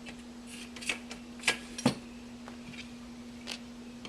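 Parts of a chafer stand being fitted and slid together by hand, giving a handful of sharp separate clicks and knocks, the loudest two about a second and a half and two seconds in, over a steady faint hum.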